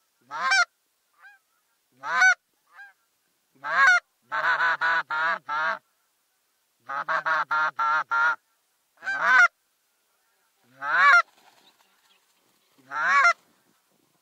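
Canada goose honks: loud single honks about every two seconds, and two quick runs of five or six honks in the middle.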